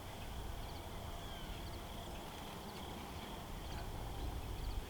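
Outdoor campground ambience: faint short bird chirps repeating about once a second over a steady low rumble.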